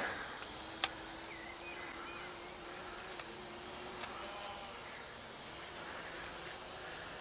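Small quadcopter drone's propellers in flight, a steady high whine that drops slightly and briefly about five seconds in.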